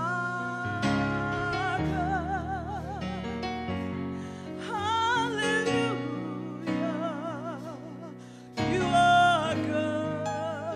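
A woman singing a gospel worship song into a microphone, with wavering vibrato phrases over a soft instrumental accompaniment. About nine seconds in she rises to a louder, higher held note.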